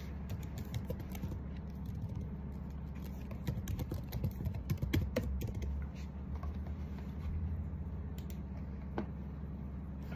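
Computer keyboard typing: scattered key clicks, busiest in the middle, over a steady low room hum.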